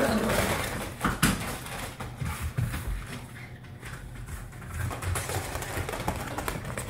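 Dogs' paws scrabbling and padding on a plastic runner over carpet as they dash about after a toy, with a sharp click about a second in and scattered light taps and thumps after.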